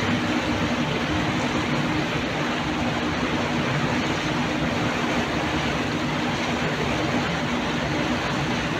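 Motor riverboat under way: its engine hums steadily at a low pitch under an even wash of water and wind noise, heard from the lower deck at the stern.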